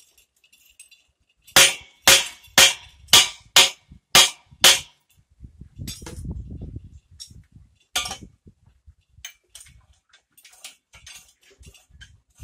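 Sharp metal-on-metal clanks at a bore-well pipe-lifting rig's steel pipe, clamp and chain: seven in a row, about two a second, then one more a few seconds later. Light clinking and rattling of metal follows.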